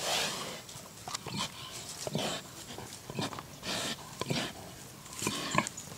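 Pig rooting with its snout in soil and pine needles, giving a string of short snuffles and grunts.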